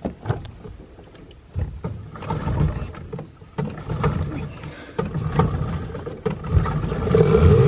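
Small outboard motor on an aluminium jon boat being pull-started: several pulls of the recoil cord with knocks against the hull. The engine catches near the end and revs up.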